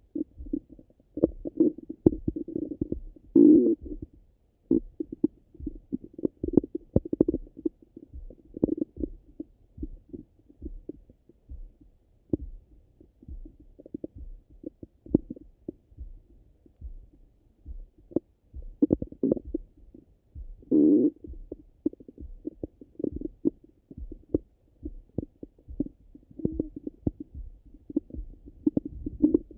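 Stomach and bowel sounds heard through a stethoscope pressed to the belly: irregular gurgles and pops with a few longer rumbling gurgles, all muffled and low-pitched. This is an active, rumbly gut digesting soon after a meal.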